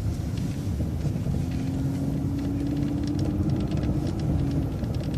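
MCO ViewMaster transit bus driving at low speed, heard from inside the cabin: a steady low engine and road rumble, with a thin whine that comes in about one and a half seconds in and fades out near the end.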